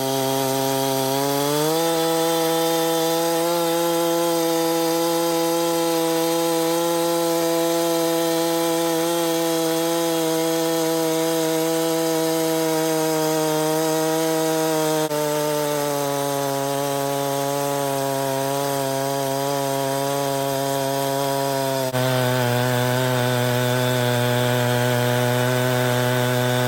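Chainsaw mill with a full skip chain ripping a log lengthwise: the two-stroke saw engine revs up over the first couple of seconds, then runs at full throttle under cutting load. Its pitch drops abruptly twice, about halfway through and again near the end.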